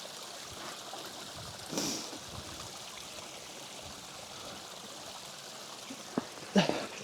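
A stream running over rocks, a steady rush of water. A short sharp knock sounds about six seconds in, and a brief breath near the start and a short voiced sound near the end.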